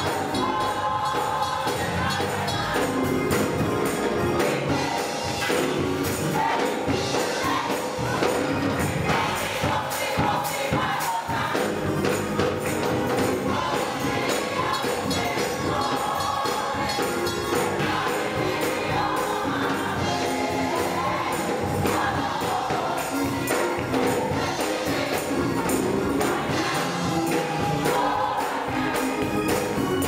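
Gospel choir singing an upbeat praise song, with a tambourine shaking along in a steady beat.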